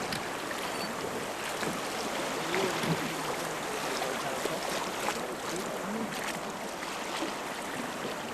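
Steady rush of river water around a rafting boat, with scattered short splashes.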